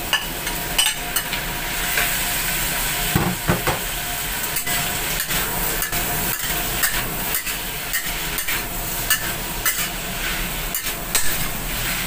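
Sliced beef sizzling as it fries with onions in hot oil in a large steel wok, with frequent sharp scrapes and knocks of a long-handled spatula stirring it against the pan.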